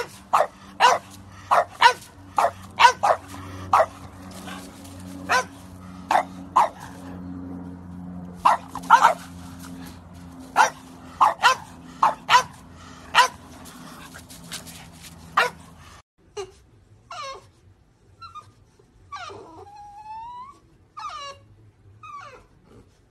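French bulldogs barking, short sharp barks one or two a second. About two-thirds of the way through this gives way to a French bulldog whining, its pitch rising and falling.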